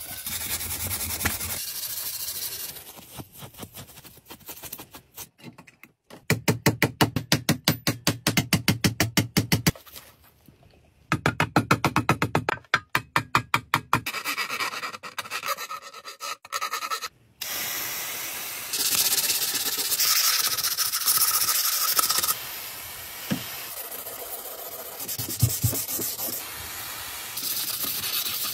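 Hand restoration work on a copper box: steel wool scrubbing the metal, then runs of fast, even back-and-forth strokes, and later a long steady hiss with scraping.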